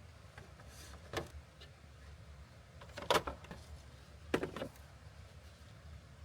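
A few short knocks and clunks, three or four in all, over a low steady hum.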